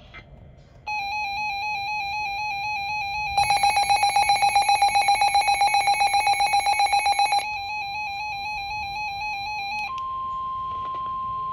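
Weather alert radio sounding its warning alarm for a severe thunderstorm warning. A warbling electronic alarm starts about a second in, and a louder rapid pulsing beep joins it for about four seconds. Near the end it switches to a single steady tone, the 1050 Hz warning alarm tone that leads into the spoken warning.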